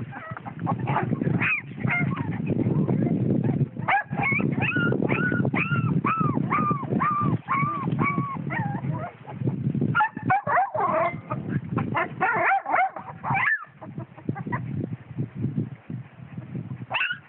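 Puppies yelping and whining in a string of short, high calls, about two a second, then a busier run of yips around ten to thirteen seconds in.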